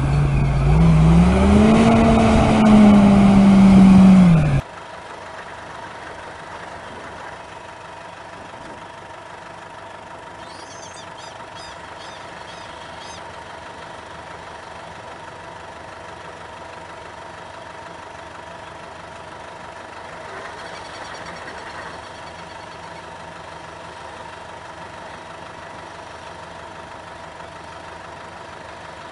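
A large tractor's engine revving hard, its pitch rising and then holding, with the wheels deep in mud. After about four and a half seconds it cuts off abruptly, giving way to a much quieter, steady hum from a combine harvester cutting grain.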